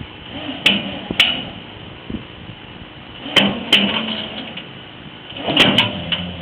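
Sharp bangs against a livestock carrier as the bull is moved into it. They come in three close pairs a few seconds apart, with a brief ringing after each.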